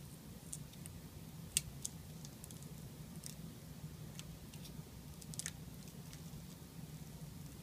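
Faint, scattered plastic clicks and ticks as ribbon-cable connectors on a tablet's circuit board are unlatched and the cables worked loose, the sharpest about a second and a half in and a quick pair past the middle. A steady low hum runs underneath.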